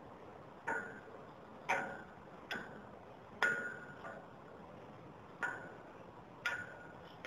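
Metal struck six times, about a second apart with a short pause midway, each clank leaving a brief ringing tone.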